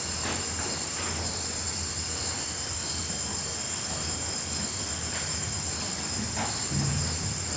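Chorus of night crickets and grasshoppers trilling steadily at a high pitch, with one insect pulsing about twice a second over it. A low steady hum runs underneath.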